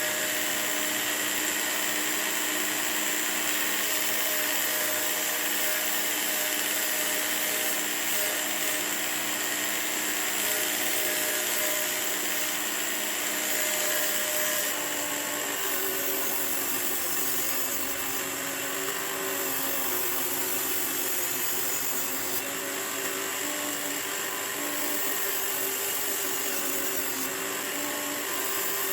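Work Sharp Knife and Tool Sharpener, a small electric belt sharpener, running steadily with a medium-grit belt while a naginata blade is ground on it in strokes to raise a burr. Its hum drops slightly in pitch about halfway through.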